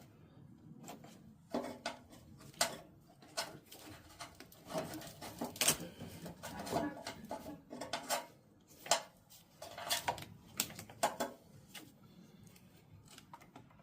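Irregular metallic clinks and clatter of battery cables, terminals and bolts being handled and fitted to a riding mower's battery.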